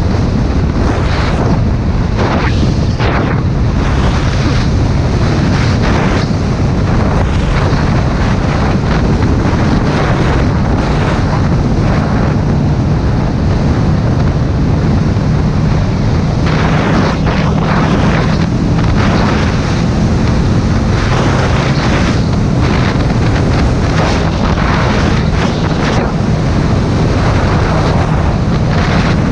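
Strong wind buffeting the microphone of a moving motorcycle, a steady roar that swells in gusts, with the engine running steadily underneath.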